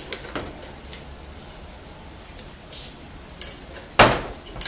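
Stainless steel canister and its metal lid being handled: a faint click, then a sharp metallic clank about four seconds in as the lid comes off, followed by a couple of lighter knocks.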